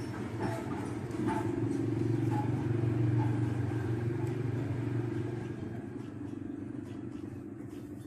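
A motor vehicle's engine hum that grows louder about a second in and fades away over the last few seconds, as of a vehicle passing by. A few light knocks come as the coconut shell is handled against the bonsai.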